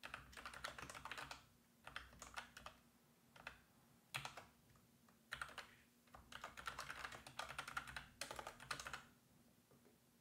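Computer keyboard typing, faint, in bursts of keystrokes separated by short pauses, with a longer run of typing from about six seconds in until near the end.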